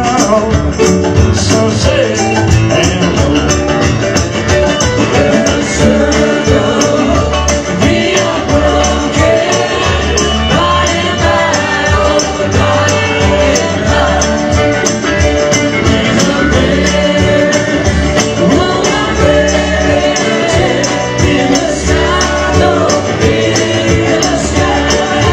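Music with a steady, quick percussive beat.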